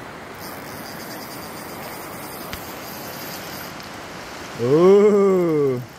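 Steady rush of fast river water. Near the end, a man's long drawn-out "ooh" that rises then falls in pitch.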